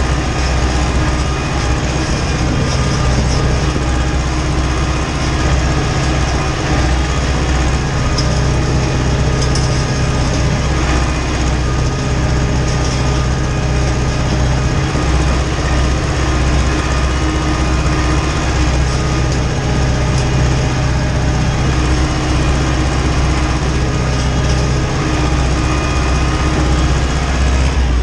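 Ursus tractor's diesel engine running steadily under load while pulling a seedbed cultivator, heard from inside the cab.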